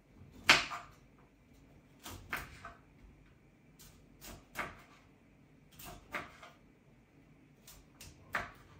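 Small kitchen knife cutting broccoli florets from the head on a bamboo cutting board. There is a series of sharp cuts and knocks of the blade on the board, about seven of them, one to two seconds apart, the loudest about half a second in.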